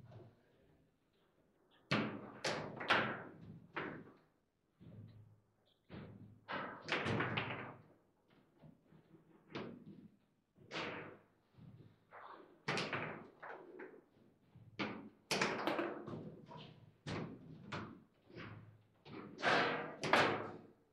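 Table football in play: irregular sharp knocks and slams as the ball is struck by the player figures and bangs against the table, and the rods hit their stops. The knocks come in quick bursts with brief pauses between rallies.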